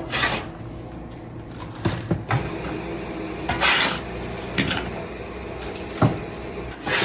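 Repeated short scrapes and clatters of metal cookware or utensils, about seven spread over several seconds, over a steady low hum.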